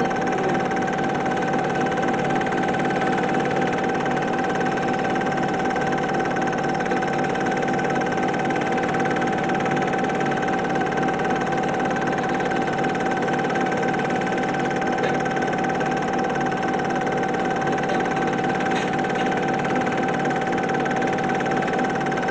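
Super 8 film projector running: a steady mechanical whirr with a constant hum, going evenly without a break.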